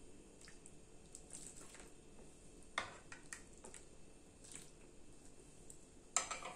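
A ladle scooping sambar from a pot and pouring it into a serving bowl: faint liquid splashes and a few soft knocks of the ladle, one about three seconds in and a louder one near the end.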